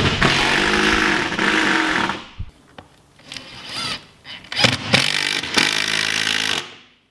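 Bosch cordless impact driver driving a large wafer-head screw into the wooden jamb beside a garage door panel. It runs in two bursts of about two seconds each, with a brief blip between them, and the second burst cuts off sharply near the end.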